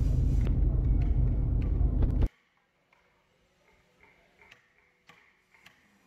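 A loud low rumble that stops abruptly about two seconds in, leaving near silence with a few faint ticks.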